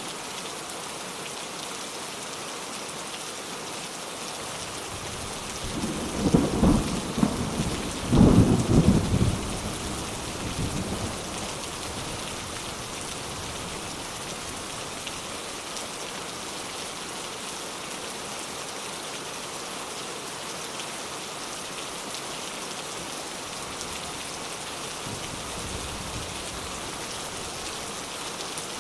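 Steady heavy rain falling, with a roll of thunder about six seconds in that rumbles loudest around eight to nine seconds and dies away by about eleven seconds.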